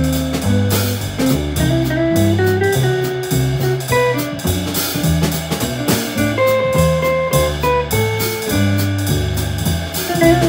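A live jazz trio playing: hollow-body electric guitar picking a line of single notes over an upright double bass walking one note about every half second, with drums keeping time on the cymbals.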